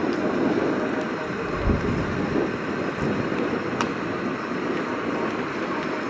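Boat engine running steadily on open water, with wind on the microphone. One sharp click about four seconds in.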